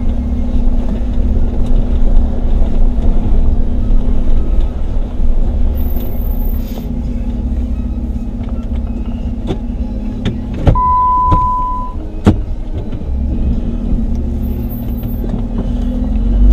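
Jeep Wrangler Unlimited's V6 engine running steadily at low revs as it crawls up a rocky dirt trail in four-wheel-drive low. A couple of sharp knocks come around ten to twelve seconds in, with a short steady beep between them.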